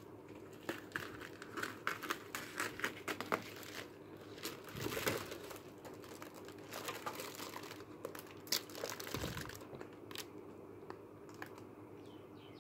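Plastic bubble wrap crinkling and crackling as it is cut open with scissors and pulled off a packaged device, in quick irregular crackles that are busiest in the first five seconds or so and sparser afterwards.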